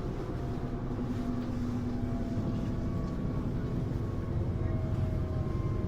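Steady running noise inside a moving electric regional train: a low rumble from the wheels and track, with a faint whine that drifts slowly in pitch.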